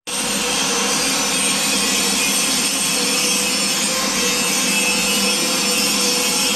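Electric motor-driven siren running at a steady speed: a constant whirring rush of noise with a faint steady tone underneath, holding one pitch with no rise or fall.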